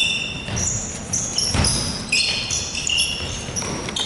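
Basketball game noise: the ball bouncing on a hard court with a few thuds, and many short high sneaker squeaks on the floor.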